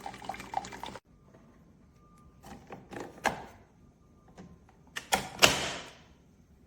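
Clicks and knocks from handling a Keurig K-Express single-serve coffee maker, then a loud click about five seconds in followed by a short hiss that fades within a second.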